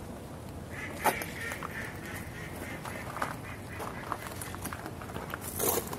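Animal calls over outdoor background noise: a drawn-out call about a second in, with a sharp click at the same moment, and a louder, rougher burst of sound near the end.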